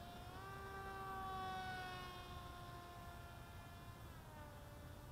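Electric motor and propeller of an Assassin flying-wing RC plane in flight, a faint buzzing whine. Its pitch steps up a little under a second in, sags slowly, and drops again near the end.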